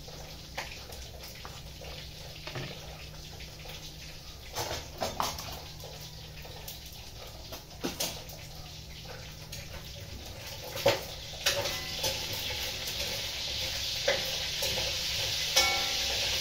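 Scattered clinks and knocks of kitchen utensils and pots. About eleven seconds in, a hiss starts and grows steadily louder: food beginning to sizzle in a hot frying pan.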